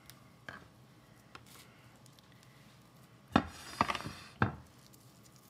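Kitchen knife cutting through an onion on a plastic cutting board: a few soft cuts, then three or four sharp, louder knocks and clatters about three and a half to four and a half seconds in.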